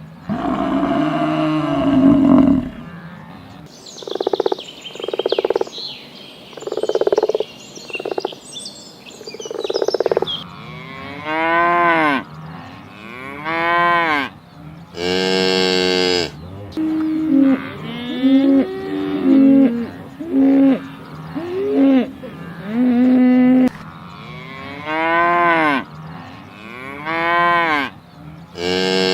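Cattle mooing over and over: a run of short calls, each rising and falling in pitch, about a second apart.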